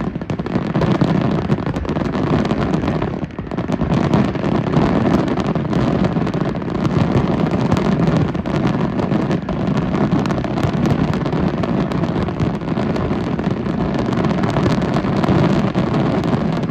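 Many fireworks and firecrackers going off at once: a continuous din of overlapping bangs and crackles.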